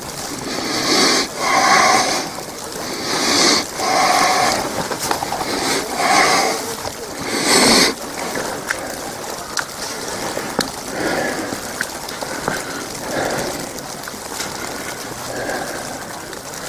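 Breathing close to the microphone, a run of loud puffs about a second apart that stops about halfway through. Wet snow pattering on an umbrella overhead, a steady fine ticking.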